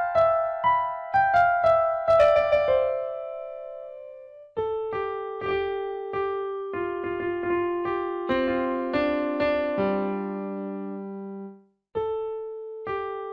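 Background music on electric piano: a quick falling run of notes, a short pause, then slower notes that stop briefly near the end before starting again.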